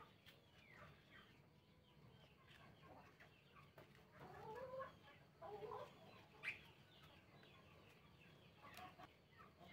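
Near silence: room tone with a few faint animal calls in the background, clustered around four to six seconds in.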